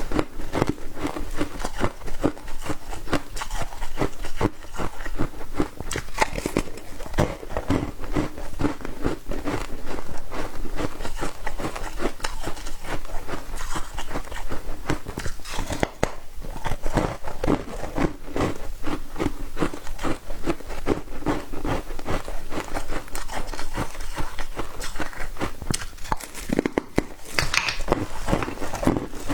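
Foam ice being chewed close to the microphone: a continuous run of quick, soft crunches.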